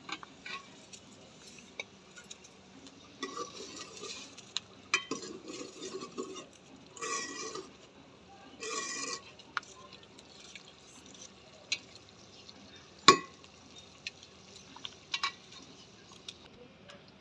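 Small knife cutting an onion held in the hand, with pieces dropping into a plastic colander: scattered crisp cuts and clicks, a few short scraping bursts, and one loud sharp click a little past the middle.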